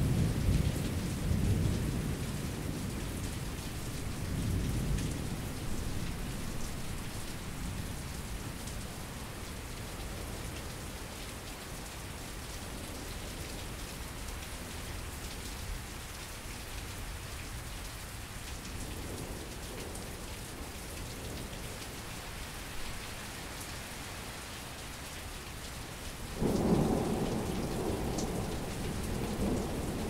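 Thunderstorm: steady rain with thunder. A low rumble fades over the first few seconds, then about 26 seconds in a sudden, louder peal of thunder breaks and keeps rumbling.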